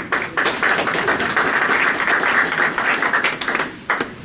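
A small audience applauding, a dense patter of many hands clapping that fades out just before the end.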